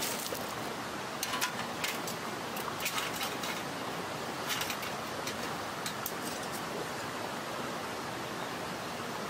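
Steady rush of a mountain stream, with scattered light clicks and knocks from a stainless steel folding fire stand being handled and assembled on gravel.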